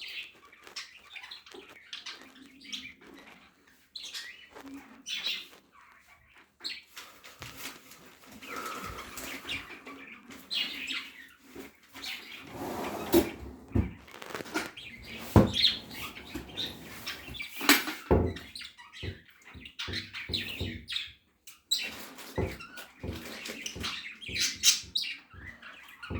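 Pet budgerigar chirping and chattering in short, irregular calls, with a few sharp clicks or knocks in between.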